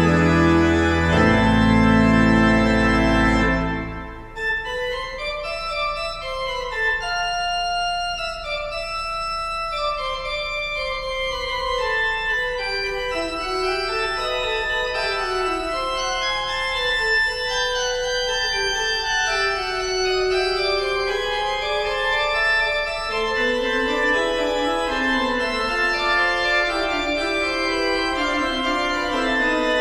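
Organ postlude closing the service. A loud held chord with deep bass ends about four seconds in. A lighter passage of moving melodic lines in the middle and upper range follows.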